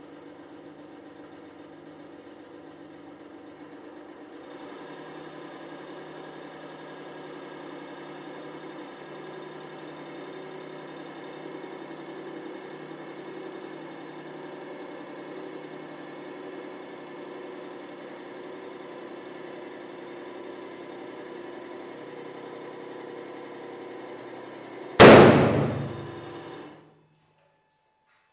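Hydraulic press pump running with a steady mechanical hum, a little louder about four seconds in, as the ram squeezes a soccer ball. Near the end the ball bursts with a single very loud bang that rings briefly, and the press stops soon after.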